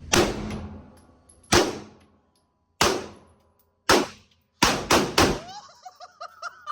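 Seven gunshots: four about a second apart, then three fired quickly together. Each shot has a trailing echo.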